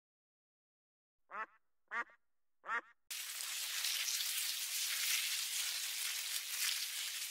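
Three short duck quacks, about two-thirds of a second apart. About three seconds in, the sound cuts suddenly to a loud, steady hiss.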